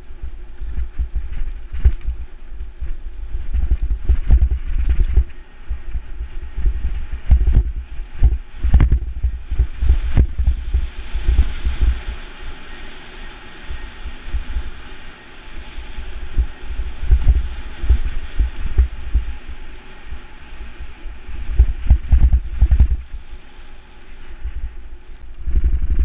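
Mountain bike riding fast down dirt singletrack. Wind buffets the microphone in an uneven low rumble, the bike rattles and knocks over rough ground, and the tyres hiss over dirt and leaves, loudest around the middle.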